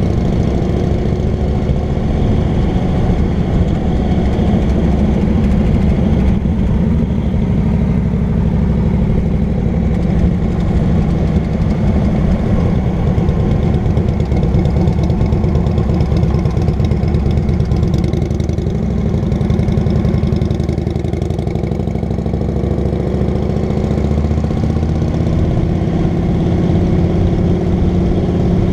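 Cruiser motorcycle engine running steadily at road speed, heard from on board the bike. The engine note eases off briefly about twenty seconds in, then settles back to a steady run.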